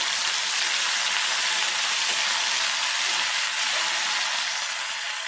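Ginger-garlic paste frying in hot oil in a kadhai, with a steady, even sizzle.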